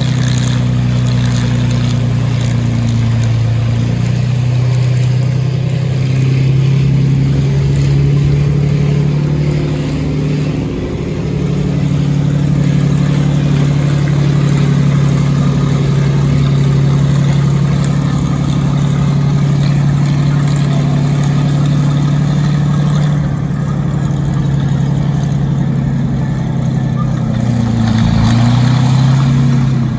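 Heavy tracked armoured vehicle's engine running under load as the tank drives off, a deep steady drone. Its pitch drops briefly about a third of the way in, then rises and wavers near the end as the revs change.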